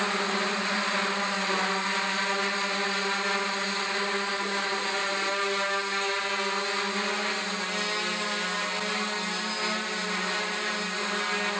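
DJI F550 hexacopter lifting off and hovering, its six brushless motors spinning 8x4.5 propellers on a 4S battery with a steady multi-toned propeller buzz.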